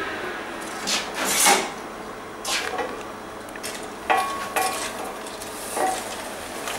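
Metal pots, lid and utensils being handled, giving a handful of separate knocks and scrapes. One, about four seconds in, rings briefly.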